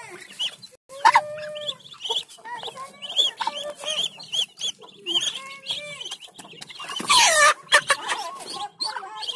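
Muscovy ducklings peeping over and over in short, high calls as they crowd at feeding. A lower, longer call comes about a second in, and a loud, harsh squawk about seven seconds in.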